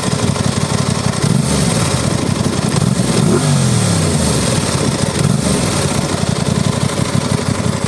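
2021 Aprilia RS660's 659 cc parallel-twin idling through its exhaust and blipped a few times, the biggest rev about three seconds in rising and falling back to idle. Strong wind hisses on the microphone.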